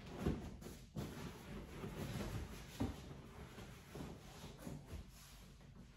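Irregular rubbing and rustling with a few soft thumps, from a leather sofa being wiped down and its cushions handled.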